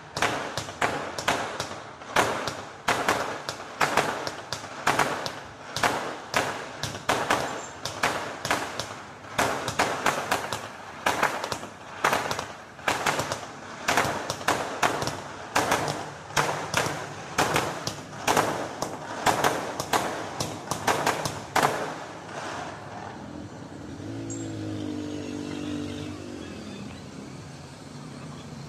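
Fireworks going off in a rapid series of sharp bangs, about two a second, which stop a little over twenty seconds in. A short wavering pitched sound follows near the end.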